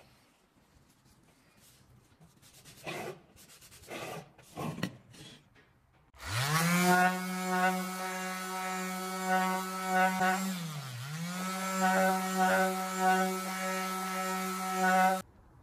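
A few short rubbing strokes on wood, then an electric power tool's motor spins up about six seconds in and runs at a steady pitch. It bogs down briefly under load around eleven seconds, recovers, and cuts off suddenly near the end.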